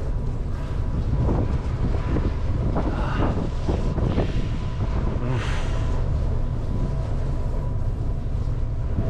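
Strong wind buffeting the microphone: a steady low rumble with gusts.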